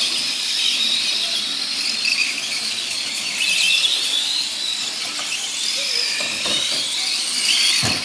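Several radio-controlled semi trucks racing, their motors whining high, the pitch of each gliding up and down as they speed up and slow down.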